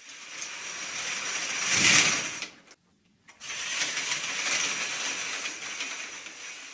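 Stage curtain sound effect: a long swish of a theatre curtain being drawn across, loudest about two seconds in, then after a brief break a second, longer swish as it is drawn back.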